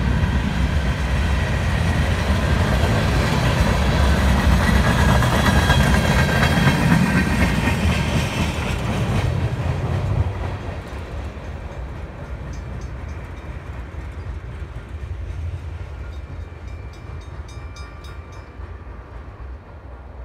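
Empty bulkhead flatcars of a freight train rolling past with a steady rumble and clatter of wheels on rail. About halfway through the last car goes by, and the sound drops suddenly and then fades as the train moves away.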